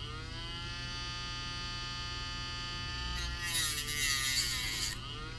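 Dremel rotary tool running with a steady high whine. It spins up at the start, and from about three seconds in it grinds the edge of a plastic vape pod mouthpiece, its pitch sagging under the load before picking up again near the end.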